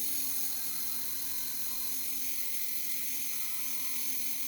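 Power drill spinning a brass wire brush against the rear axle spindle at a steady speed, scrubbing off rust left by the failed wheel bearing. It starts abruptly as a constant whine with a scratchy hiss over it.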